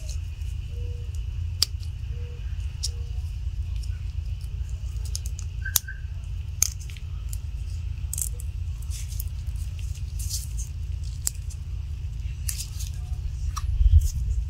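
Scattered small metallic clicks and ticks as a steel gas ring is worked into its groove on an AR-15 bolt by gloved fingers, over a steady low hum.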